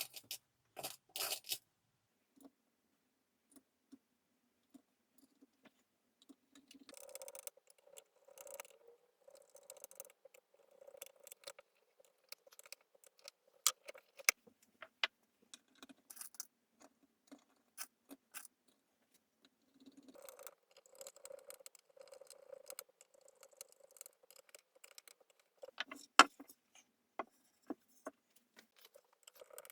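Workshop hand work: many small sharp clicks and taps, with two longer stretches of light rubbing or scraping, and a louder pair of knocks about 26 seconds in.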